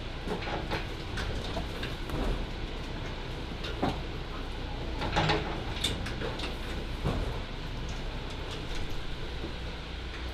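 Shipboard vertical stores conveyor running: a steady low rumble with irregular knocks and clatter as its slatted trays cycle and boxes are set on them.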